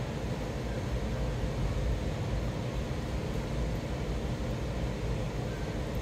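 Steady low rumble with an even hiss: continuous background room noise.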